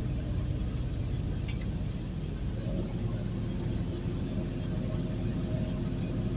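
Truck's engine and tyre noise heard from inside the cab while driving on the highway: a steady low drone, joined by a faint steady hum about three seconds in.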